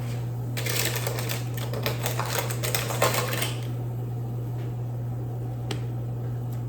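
Rapid clicking and scraping of a utensil moving baked salmon pieces into meal-prep containers, dense for about three seconds and then a few scattered taps. A steady low appliance hum runs underneath.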